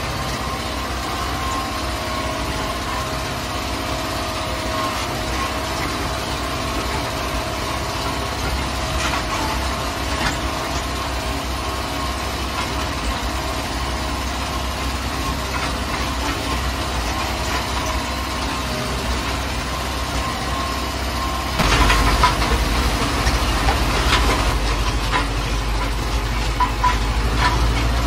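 Farm tractor's diesel engine running steadily as the tractor drives, heard from inside the cab. About three quarters of the way through, it gets louder and deeper, with scattered knocks and rattles.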